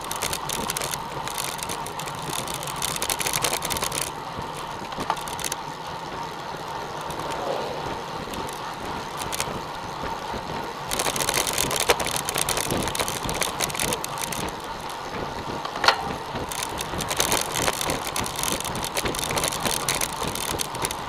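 Wind rushing over the microphone and tyre noise from a pack of road bicycles riding on asphalt. The hiss grows louder from about eleven seconds in, and there are a couple of sharp clicks, one about twelve and one about sixteen seconds in.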